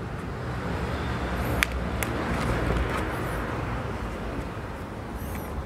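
Steady outdoor background noise with a low rumble, and a couple of faint light clicks around two seconds in.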